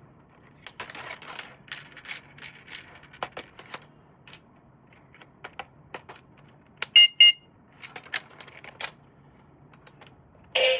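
Scattered clicks, taps and short rustles of a toy RC helicopter and its parts being handled, with two short high electronic beeps in quick succession about seven seconds in.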